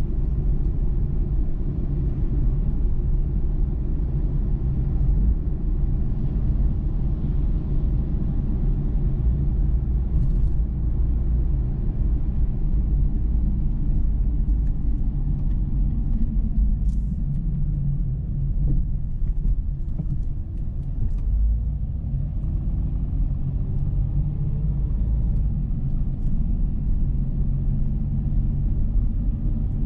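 Dodge Charger's 3.5-litre V6 and road noise while driving: a steady low rumble, with the engine's pitch gliding up and down a few times in the second half and a few faint clicks.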